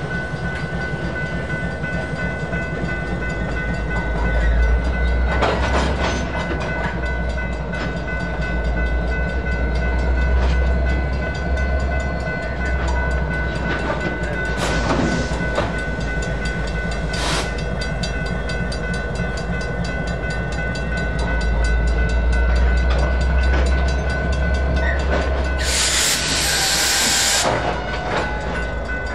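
EMD SD59MX diesel locomotives rumbling through a grade crossing, the rumble swelling and easing, while the crossing's electronic bell rings steadily. A few sharp clanks sound along the way, and near the end a loud hiss lasts about two seconds.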